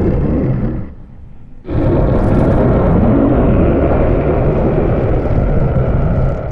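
Loud, low rumbling noise in two stretches with a brief lull about a second in: a sound effect standing in for a shark.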